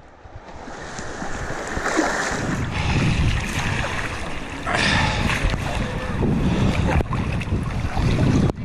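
Shallow river rapids rushing and splashing right around a camera at the water surface, with a low rumbling buffet on the microphone and louder surges of splashing about two, three and five seconds in.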